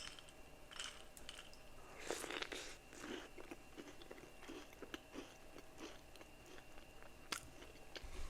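A person chewing a bite of a fudge-frosted sugar cookie close to the microphone: faint, soft crunching and mouth sounds.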